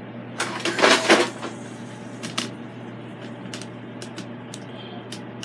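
Kitchenware handled on a countertop: a scraping clatter about a second in, then a few light knocks, over a steady low hum.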